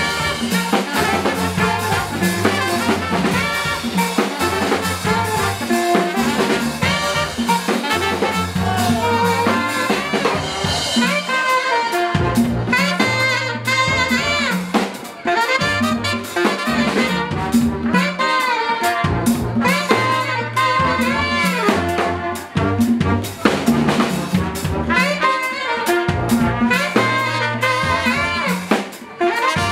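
Live brass band playing: saxophone and trumpet leading over trombone and a drum kit, with many bending, sliding melody lines.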